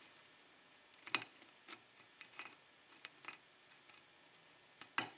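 Faint scattered clicks and scrapes of a lock pick working the pin stacks of a DOM euro cylinder lock under tension, with a sharper click about a second in and another near the end.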